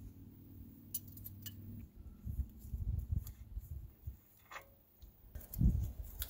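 Light metallic clicks and clinks as the nut lock and hub nut are worked off a truck's front wheel spindle. Duller low knocks come in the middle, and a louder dull thump sounds near the end as gloved hands take hold of the brake rotor.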